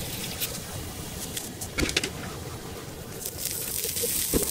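Food sizzling and steam hissing on hot cast-iron sizzle plates, over a low steady rumble. A few sharp metal clinks of tongs against the plates come near the middle and again near the end.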